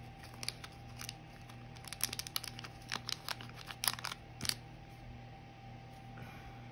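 Crinkling and crackling of a nail polish strip and its plastic backing film being handled and peeled between the fingers: a scatter of short, sharp crackles that stops about four and a half seconds in.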